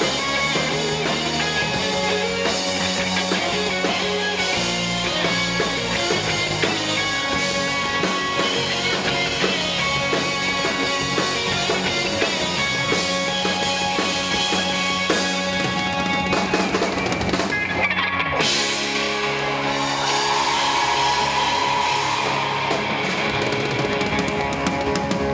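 Rock band playing live, with a drum kit, electric guitars and bass. About eighteen seconds in the cymbals cut out for an instant and the band comes back in a new section.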